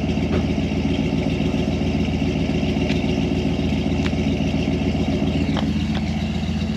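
The 1993 Ford Lightning's stock 5.8-litre V8 idling steadily after a cold start in sub-freezing weather, with a few faint clicks over the idle.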